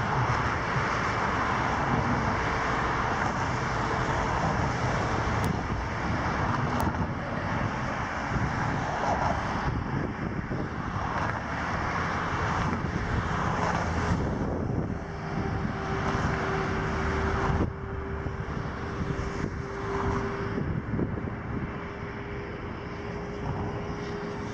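Steady engine drone with a hiss that swells and eases at times. A steady low hum joins it about fifteen seconds in.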